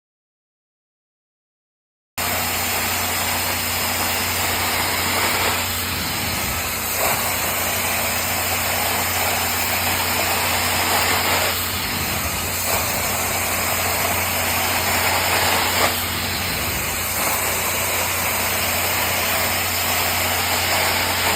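Carpet-cleaning extraction machine running with a steady noisy whine over a constant low hum, starting about two seconds in; its sound shifts slightly every few seconds.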